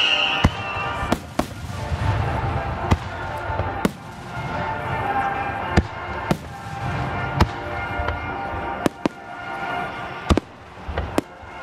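Aerial fireworks display: a whistle falling in pitch fades out in the first half second, then shells burst with a dozen or so sharp bangs and crackles at irregular intervals over a low rumble.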